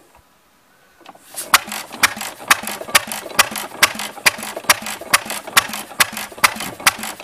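1914 Friend vintage stationary engine starting about a second in, then running slowly and evenly with sharp, regular pops, about two strong ones a second with lighter ones between; the slow, even beat is the throttle governor holding it at low speed.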